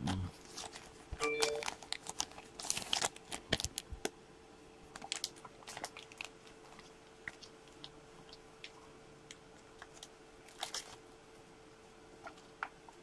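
Light, irregular clicks and crinkling of small items being handled on a desk, with a faint steady hum underneath.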